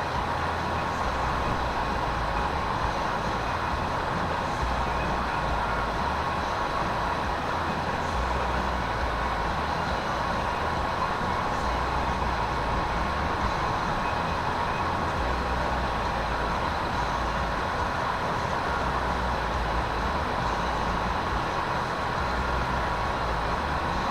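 Strong wind buffeting the microphone in uneven low gusts, over a steady hiss with a constant high hum.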